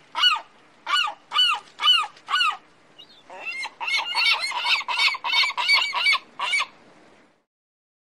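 Gull calling: a series of loud, arched calls at about two a second, then a quicker run of calls from about three seconds in that stops near seven seconds.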